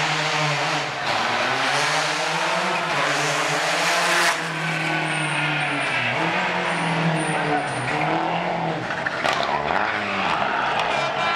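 Rally car engine revving hard, its pitch climbing and dropping again and again through the gear changes, with tyres squealing as the car slides round a tight bend. The sound breaks off abruptly about four seconds in and picks up again on another stretch.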